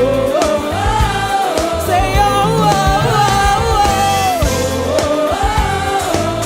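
Live gospel praise-and-worship music: a singer holds long, gliding notes over a band's bass and drums.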